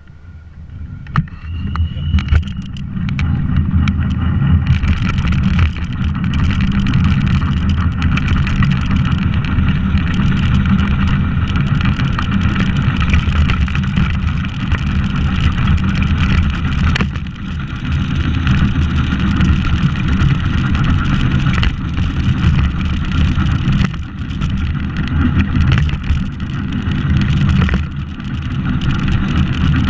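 Unpowered soapbox car rolling down an asphalt road, heard from a camera mounted on the car: a steady rumble from the wheels and a rush of air. It builds over the first few seconds as the car gathers speed.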